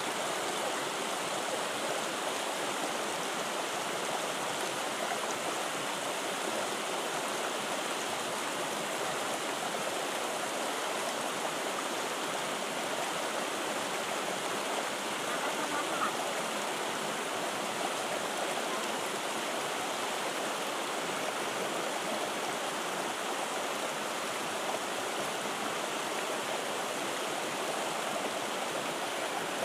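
Fast, shallow river rushing over rocks in white water, a steady, unbroken rush of water.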